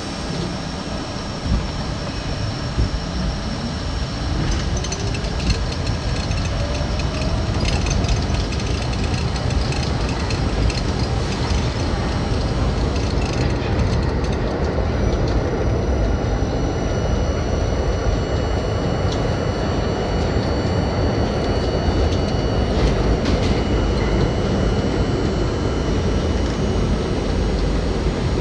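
New York City Subway C train pulling out of a station and running through the tunnel, heard from inside the train: a rising motor whine for the first few seconds as it gathers speed, then a steady rumble with occasional clacks of the wheels over the rails.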